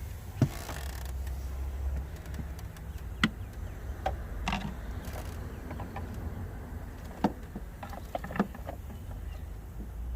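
Scattered sharp clicks and knocks of parts and hand tools being handled in a car's engine bay, over a steady low hum.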